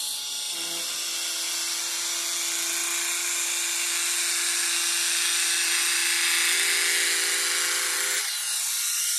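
Braun Silk-épil 9 Flex epilator running steadily while it is glided over the skin of the leg: a constant motor whir with one held tone under a high hiss.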